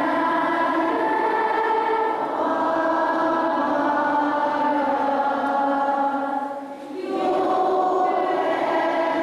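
A large group of schoolchildren singing together in slow, long held notes, with a brief pause for breath about seven seconds in.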